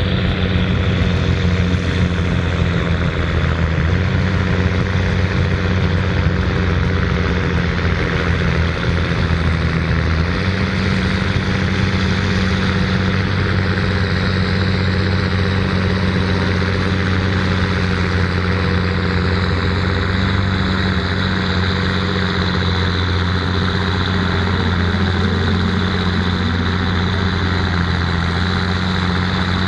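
New Holland 8970 tractor's six-cylinder turbo diesel engine running at a steady speed, its note shifting slightly about ten seconds in.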